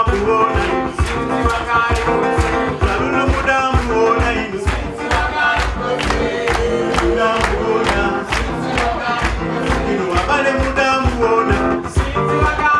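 Live band music with a fast, steady drum beat, guitar and a singer.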